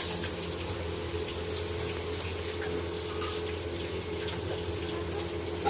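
Tap water running steadily, with a low steady hum underneath.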